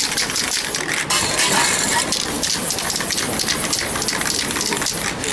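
Aerosol spray paint can hissing as paint is sprayed onto a board, with short breaks between spurts.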